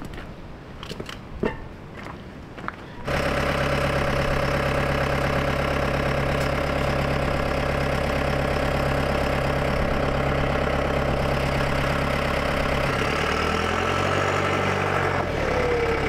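John Deere loader tractor's diesel engine running steadily close by. It comes in suddenly about three seconds in, after a few light clicks, and its low note dips and wavers briefly near the end.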